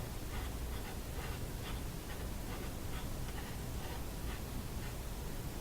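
Steady low hum with faint scratchy ticks, about two or three a second, that die away near the end, from the tube radio and test gear on the bench as the signal generator is tuned toward 460 kHz.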